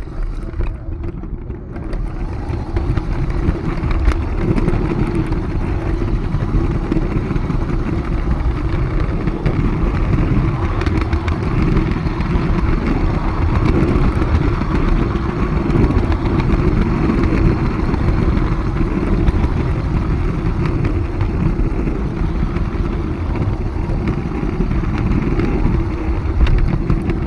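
Steady running noise of a 45 mm gauge garden-railway train heard from a camera riding on the train: wheels rumbling over the track with a steady hum, starting suddenly at the outset.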